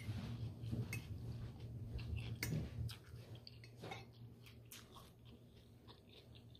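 A person chewing a mouthful of food, with small wet mouth clicks and smacks, louder over the first three seconds and softer after. A steady low hum runs underneath.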